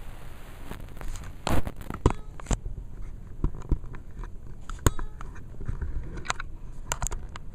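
Irregular clicks and knocks from a hand-held phone being moved and handled against its microphone. The loudest come about a second and a half, two seconds and five seconds in.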